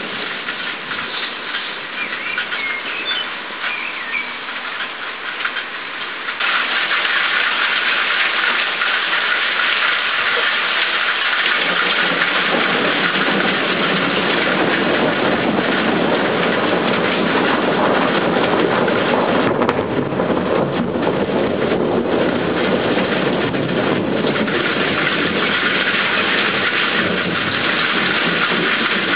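Heavy rain pouring, growing heavier in two steps: a sudden rise in level about six seconds in, then a fuller, deeper hiss from about eleven seconds on.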